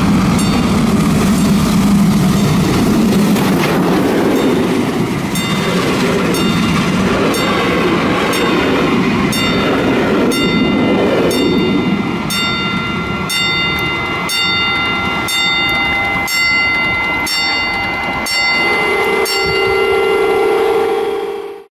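Class 52 steam locomotive 52 7596 and its passenger coaches passing close by: a loud rumble as the engine goes past, then the coach wheels clicking evenly over the rail joints with a steady high ringing from wheels and rails. Near the end a steady lower tone sounds as the train draws away.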